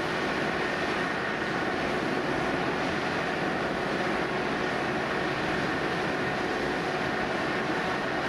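Steady drone of fire engines running, an even mechanical noise with a faint high whine held through it.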